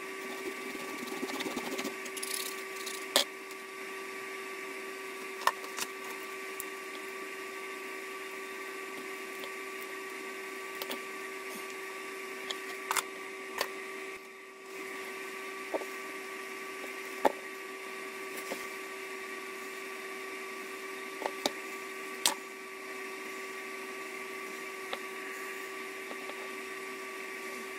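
A steady mechanical hum, with a few sharp clicks and taps scattered through as small tools and parts are handled on a workbench.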